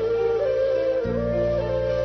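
Background music: a slow melody with sliding notes over sustained low notes, which move to a new chord about a second in.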